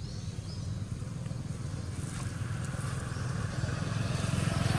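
An engine running with a low, rapidly pulsing rumble that grows louder toward the end.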